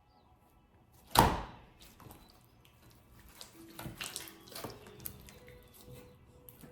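Chunky clear slime being squished by hand: one loud wet squelch about a second in, then softer squishes.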